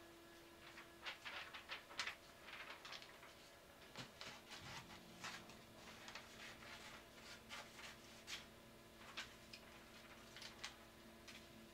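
Faint, irregular light clicks and rustles, as of hands handling things at a desk, over a low steady hum.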